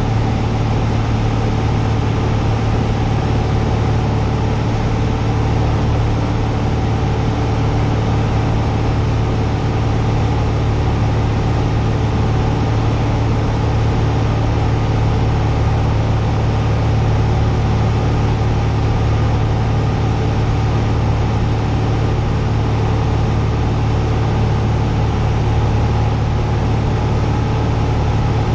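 Cessna 172's single piston engine and propeller running steadily in flight, heard inside the cockpit as a loud, constant low drone over rushing air noise.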